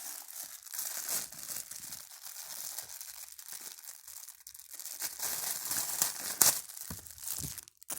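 Toy packaging being torn and crinkled open by hand, a continuous crackling and rustling with many small snaps. A sharp snap about six and a half seconds in is the loudest sound, followed by a couple of dull knocks.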